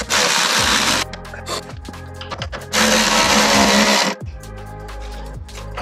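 Power ratchet tightening the snowmobile's track-adjuster bolt, running in two bursts, about a second and then about a second and a half, with a pause between.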